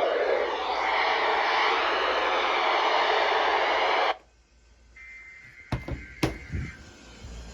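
Radio receiver static: a steady loud hiss that cuts off abruptly about four seconds in. After it come two sharp clicks and a faint steady high tone that breaks off and resumes near the end.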